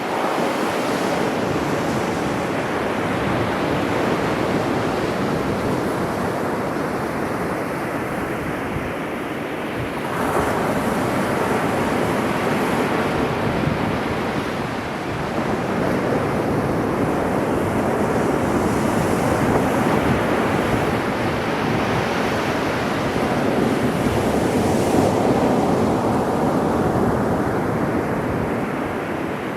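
Sea waves breaking and washing on the shore in a continuous surf, swelling and easing, with stronger surges about ten seconds in and again near the end. Wind buffets the microphone underneath.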